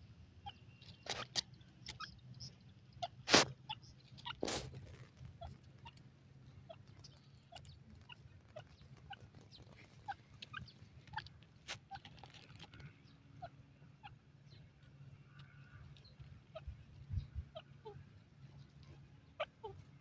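Grey francolin pecking at dry soil: many soft scattered ticks, with three sharp knocks in the first five seconds, over a low steady hum.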